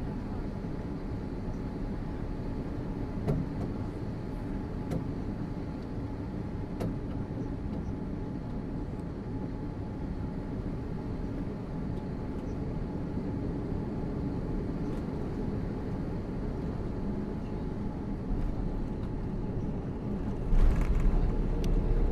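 Cabin noise inside an Airbus A340-600 airliner: a steady rumble of engines and airflow with a few faint clicks, growing louder near the end.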